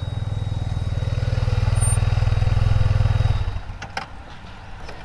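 Yamaha TMax scooter's parallel-twin engine running as it pulls up close, growing louder, then switched off about three and a half seconds in. A couple of light clicks follow.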